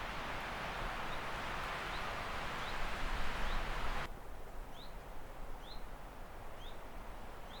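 A bird repeating a short, rising chirp about once a second over a steady rushing noise. The rushing noise cuts off suddenly about four seconds in, leaving the chirps clearer.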